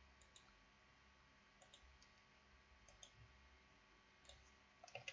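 Faint computer mouse clicks: about five brief clicks or click pairs spread over a few seconds, over a quiet room.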